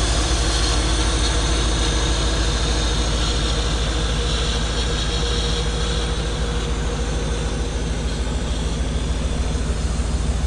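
Chevrolet 502 cubic-inch big-block V8 with aluminium heads running at a steady idle, a deep even rumble.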